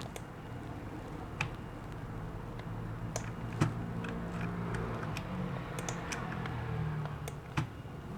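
Scattered sharp clicks of a computer mouse and keyboard, about a dozen at irregular intervals, over a faint low hum.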